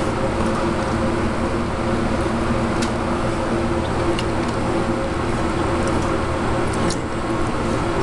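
Steady mechanical hum of commercial kitchen ventilation, with several held tones and a few faint clicks.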